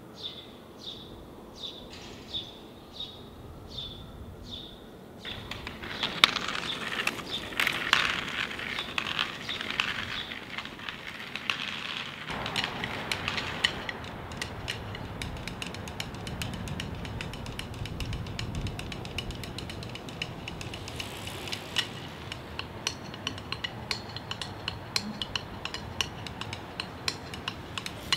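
Quiet street ambience. A bird repeats a high chirp about twice a second for the first five seconds; after that comes a busier mix of low street hum with many small clicks, ticks and light clinks.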